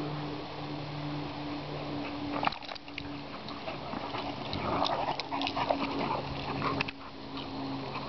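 Great Danes playing rough together, giving short irregular bursts of dog vocalisations that are busiest from about four and a half to seven seconds in. A steady low hum runs underneath.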